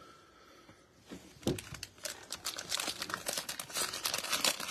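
Plastic cello wrapper of a football trading-card pack crinkling and tearing as gloved hands pull it open: quiet for the first second, a sharp crackle about a second and a half in, then dense, continuing crinkling.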